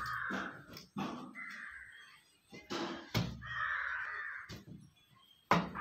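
A crow cawing: three harsh, drawn-out caws, the last and longest about three and a half seconds in, with a few sharp knocks in between.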